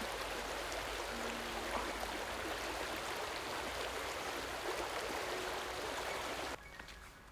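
Rushing stream water, a steady dense splashing that cuts off suddenly near the end.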